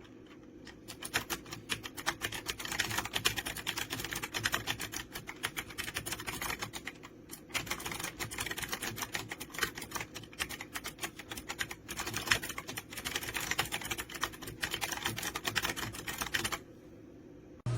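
Fast typing on an AULA F2088 typewriter-style mechanical keyboard with clicky blue switches: a dense stream of key clicks, pausing briefly about seven seconds in and stopping about a second before the end.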